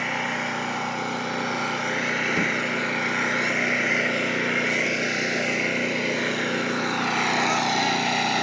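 Open-frame portable generator engine running steadily, its hum growing a little louder near the end.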